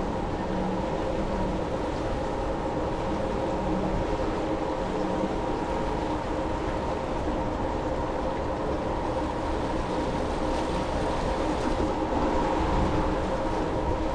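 Steady engine drone of a river cruise ship under way, heard from inside a cabin: a low rumble with a few steady hum tones over it.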